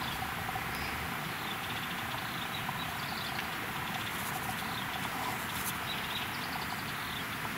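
Steady outdoor hiss with faint, high bird chirps repeating about twice a second.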